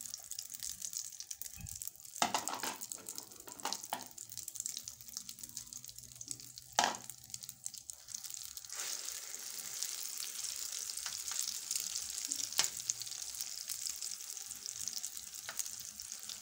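Egg mixture frying in hot oil in a metal pan, a steady sizzle and crackle, with a metal spoon knocking and scraping the pan a few times, loudest about seven seconds in.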